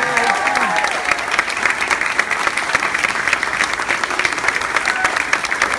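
Audience applauding with steady, dense clapping, and a voice or two calling out in the first second.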